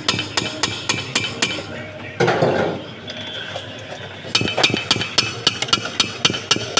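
Quick series of sharp metallic taps and clinks, two or three a second, from hand-mixer beaters knocking against a stainless steel mixing bowl while whipped cream topping is cleared off them, with a brief louder clatter about two seconds in.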